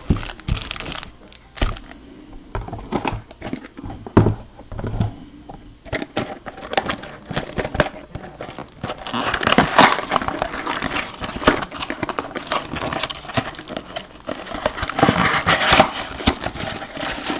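Foil trading-card pack wrappers crinkling and rustling as packs are handled and stacked, with loud stretches of crinkling about ten seconds in and again near fifteen seconds in.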